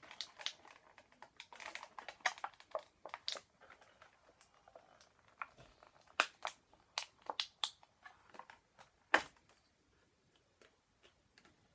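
A toy figure's stiff plastic packaging being pulled apart by hand: irregular crinkles and sharp snaps, with a few louder cracks in the second half.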